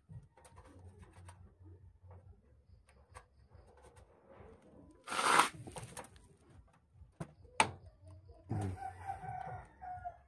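Cables and plastic connectors being handled inside a metal desktop PC case: scattered small clicks and rattles, with one louder clack about five seconds in. Near the end a bird calls in the background, one held call lasting over a second.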